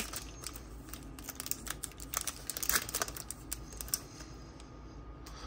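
Foil wrapper of a trading-card pack crinkling and crackling as it is pulled open by hand and the cards are slid out, a run of small sharp crackles and clicks.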